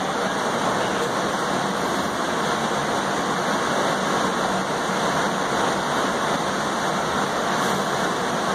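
Steady rushing noise of an MBTA Red Line 1900-series subway car running along the track, heard from inside the passenger car.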